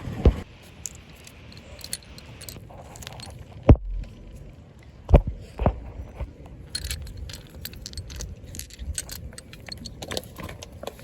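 Loose metal sockets and a socket extension clinking and clattering as they are handled, with a sharp knock just after the start, three louder knocks about four to six seconds in, and a run of light clinks near the end.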